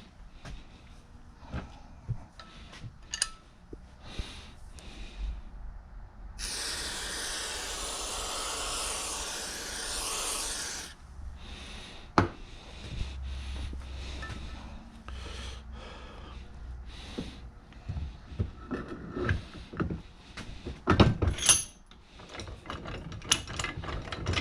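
Metal vise parts being handled and fitted, with scattered clinks, taps and rubbing. A steady hiss runs for about four seconds, starting about a quarter of the way in.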